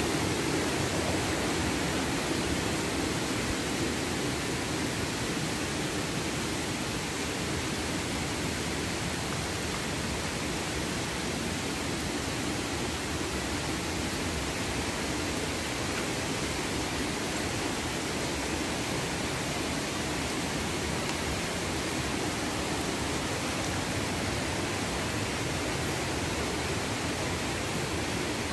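Steady rush of flowing water, an even hiss with a low rumble underneath, easing slightly over the first few seconds.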